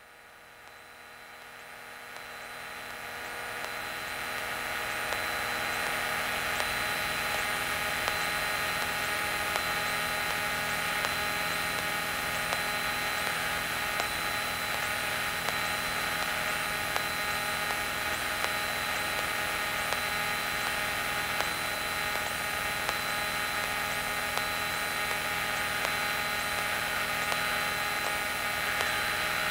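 Cessna 182 Skylane's engine and propeller drone during the climb-out. It swells over the first few seconds, then holds steady, with a thin high whine over it.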